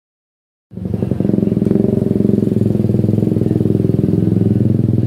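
A small engine running steadily at an even pace with a fast, regular pulse, starting abruptly less than a second in after a moment of silence.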